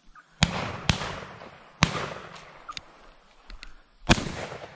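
Shotguns firing at doves: two shots close together about half a second in, a third near two seconds, and a fourth near the end, each trailing off in an echo. Fainter pops between them.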